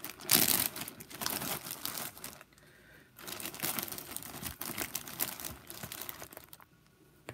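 Clear plastic zip-top bag crinkling and rustling as hands pull its seal open and handle it, with two short lulls.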